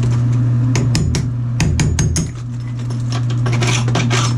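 Tile and mortar being broken out of a shower wall with hand tools: irregular sharp knocks and clinks, heaviest in the first half, over a steady low hum.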